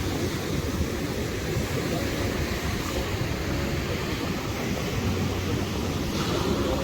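Steady wind rumbling on the microphone, with waves washing on the shore behind it.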